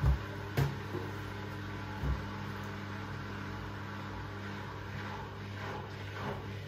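Front-loading washing machine running a wash cycle: a steady motor hum as the drum turns, with three short thumps of laundry tumbling in the drum, at the start, about half a second in and about two seconds in.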